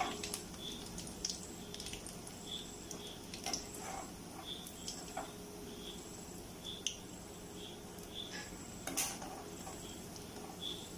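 A perforated steel skimmer clinking and scraping against an aluminium kadai as fried chicken cutlets are scooped out of the oil, a few scattered light taps, the clearest about nine seconds in.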